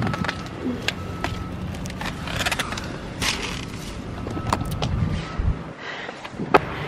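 Getting into a car with plastic carry-out bags: bags rustling, knocks and a car door, over a steady low rumble that stops about a second before the end. A sharp click near the end.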